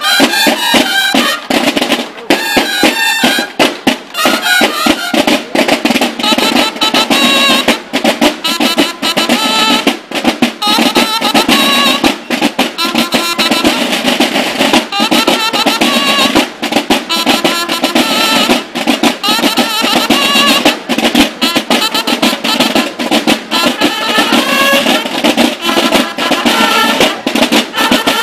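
Drum-and-bugle band (banda de guerra) playing a fast piece: snare drums rolling and beating rapidly under a line of held bugle notes.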